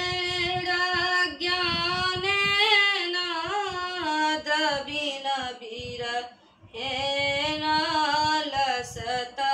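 A woman singing a devotional hymn in long, held lines that glide up and down in pitch, breaking off briefly about six seconds in before the next line.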